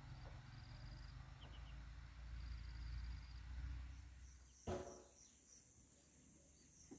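Faint outdoor ambience of insects chirping in a high, evenly repeating pulse over a low rumble. The rumble fades about four and a half seconds in, just before a single sharp knock.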